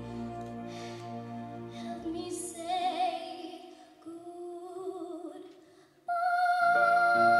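A young girl singing a slow ballad in a light soprano voice with vibrato, over sustained accompaniment. About six seconds in, the music suddenly grows louder on a long held note.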